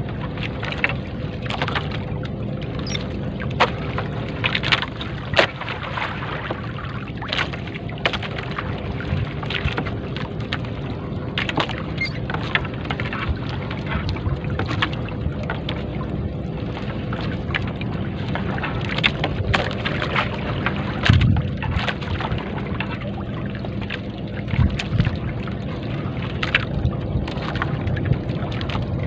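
Wet three-ply nylon shrimp net being hauled by hand over the wooden side of a small boat: irregular clicks, rustles and drips from the mesh and water, over a steady low rumble.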